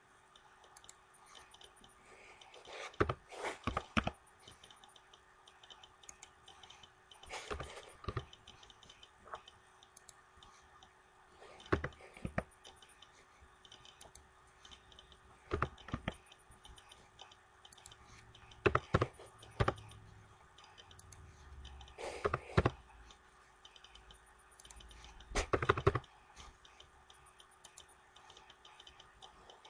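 Computer keyboard typing in short bursts of a few keystrokes, one burst every three to four seconds, as numbers are keyed into a data table. A faint steady hum runs underneath.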